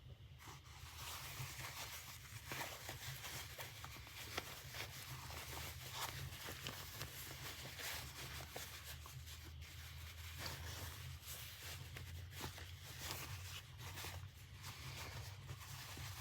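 Faint handling noise of fabric and sewing pieces: irregular light rustling and small clicks over a steady low hum.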